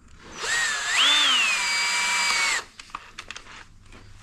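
Power drill with a 2.5 mm bit drilling a pilot hole for a screw, its whine rising in pitch at first, then holding steady for about two seconds before stopping abruptly. A few light clicks follow.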